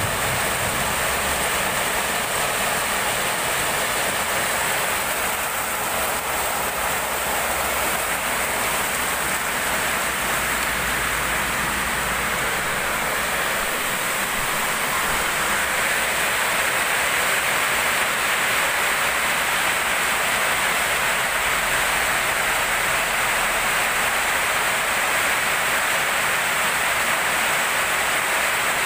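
Very heavy rain pouring down, a continuous dense hiss that grows a little louder about halfway through.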